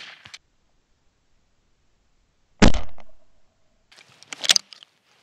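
A single shotgun shot about halfway through, sudden and sharp with a short trailing decay. About two seconds later come a few quick clicks and rattles from the gun being handled.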